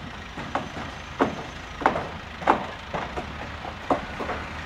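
Regular sharp knocks, about one every two-thirds of a second, over a steady noisy background.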